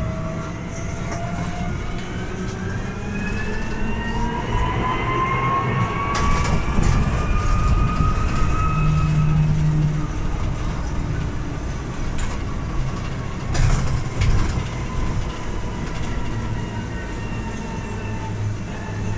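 Irisbus Cristalis ETB 18 trolleybus heard from inside: its electric traction motor whines, rising in pitch as it accelerates over the first several seconds, then a lower whine falls slowly as it eases off, over steady road rumble. A few sharp knocks come partway through.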